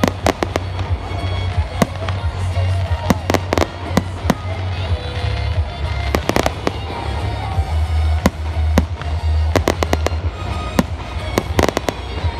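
Fireworks going off: a rapid scatter of sharp bangs and crackles, some single and some in quick runs, over a steady low rumble.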